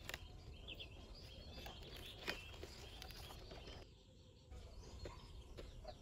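Faint rural outdoor ambience: small birds chirping now and then over a low, steady background noise.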